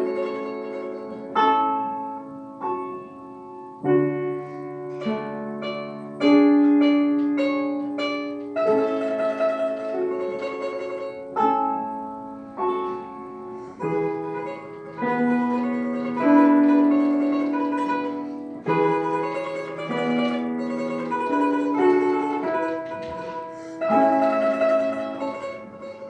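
Solo instrumental music: a single plucked or struck string instrument playing a short classical piece, melody notes over lower notes, each note starting sharply and then fading.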